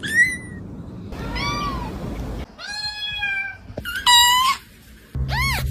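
Kitten meowing, about five short high-pitched meows in a row, some rising and falling in an arch, one longer and held about three seconds in.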